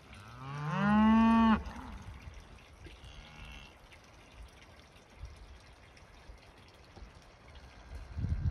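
Beef cattle mooing: one loud call about a second long just after the start, its pitch rising and then dropping away, followed by a much fainter call about three seconds in. A low rumble comes near the end.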